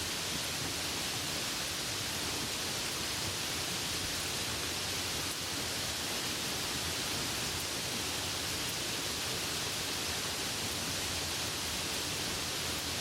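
Light rain falling: a steady, even hiss with a few faint drop ticks.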